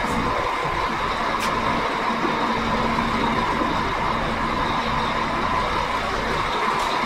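Truck running steadily at idle while its compressor pumps air into the trailer's brake system, with a faint tick or two.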